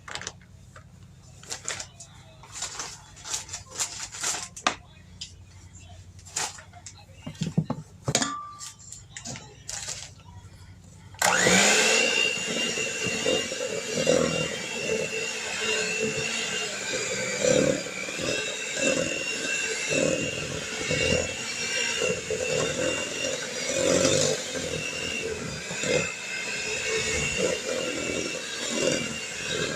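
Scattered taps and knocks as powdered sugar is scooped into a bowl with a measuring cup. About eleven seconds in, an electric kitchen mixer switches on abruptly and runs steadily with a high whine, beating the powdered sugar into the mixture.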